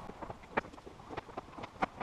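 Wooden roof battens knocking and clattering against one another and the roof edge as they are lifted up onto a board roof: a string of light, irregular wooden knocks.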